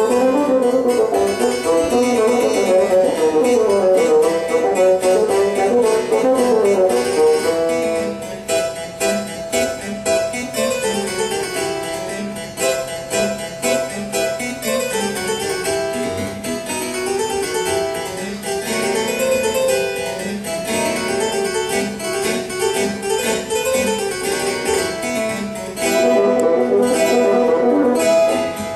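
Harpsichord and bassoon playing a duet: busy plucked harpsichord figures with long held notes over them. The music gets quieter about eight seconds in and swells again near the end.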